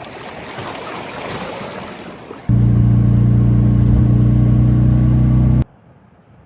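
A rushing noise for about two and a half seconds, then a classic Fiat 500's air-cooled twin-cylinder engine running steadily cuts in abruptly. It runs loud for about three seconds and cuts off suddenly near the end.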